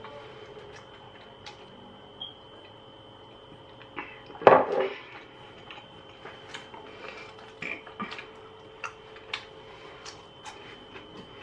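Small kitchen handling noises: scattered light clicks and knocks over a steady faint hum, with one louder short clatter about four and a half seconds in.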